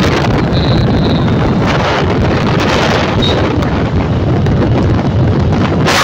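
Heavy wind buffeting the microphone of a moving motorcycle, a steady rumble with the engine and road noise buried beneath it.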